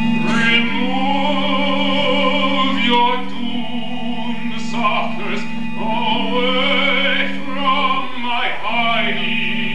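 Live opera music: a singing voice, wavering in pitch, over held low accompaniment chords that change every two or three seconds.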